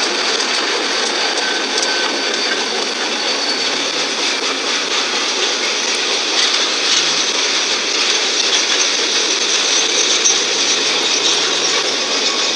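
Two Bachmann GP40 model diesel locomotives pulling a small model freight train along the track: the steady running noise of their small electric motors, gears and wheels on the rails, a little brighter about halfway through as the cars pass close.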